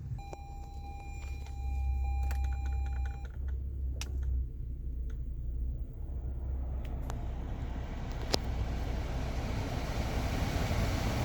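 A steady electronic tone for about three seconds over a low rumble, a few clicks, then the newly replaced AC blower fan of a 2017 Toyota Sienna spinning up into a steady rush of air from about eight seconds in. The fan runs without the noise that the old, loose blower motor made.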